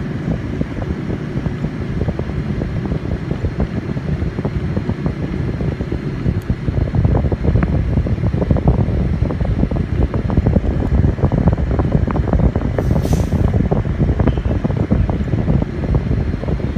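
Car air-conditioning blower running with air rushing from the dash vents, buffeting the microphone with a steady low rumble. A short hiss comes a little after the middle.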